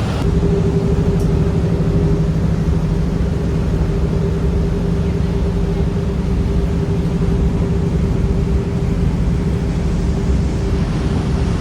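Lake cruise boat's engine droning steadily, a low rumble with a constant hum.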